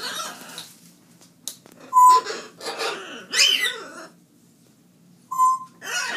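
A pet animal calling: a string of separate calls that glide up and down in pitch, with a short steady whistle-like note about two seconds in and another near the end.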